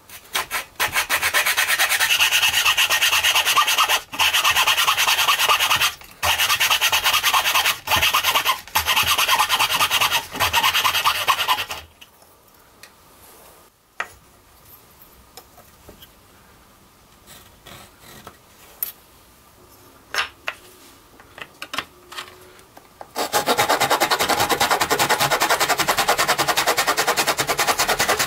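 Hand sawing through a small wooden bar. A coping saw cuts in rapid back-and-forth strokes for about twelve seconds, with a few short breaks. After a quiet stretch with scattered light knocks, a fine-toothed hand saw starts cutting the bar in a plastic miter box near the end.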